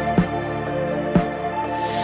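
Background music: sustained tones over a soft beat that falls about once a second.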